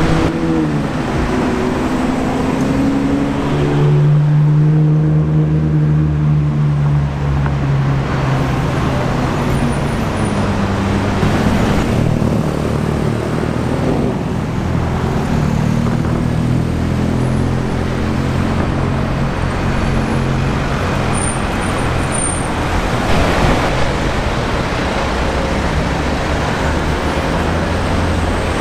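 Sports car engines in city street traffic over a constant haze of traffic noise. An engine note falls in pitch over the first couple of seconds, and a deep, steady engine note holds for a few seconds.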